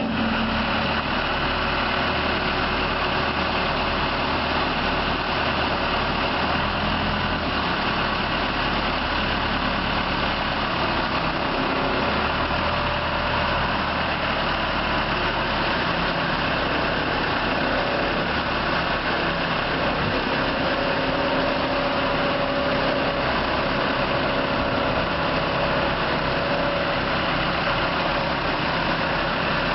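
Case 580L backhoe's four-cylinder diesel engine running steadily, its note shifting a little every few seconds.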